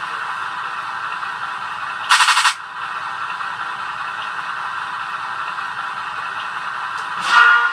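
1/6-scale Armortek Chieftain radio-controlled tank running, its sound pack playing a steady tank-engine sound. A short, loud burst of noise comes about two seconds in and lasts under half a second.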